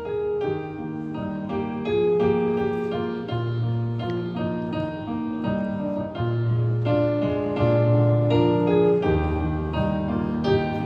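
A wind ensemble playing a slow, gentle tune in held chords over a moving bass line, with a new note or chord about every half second to a second.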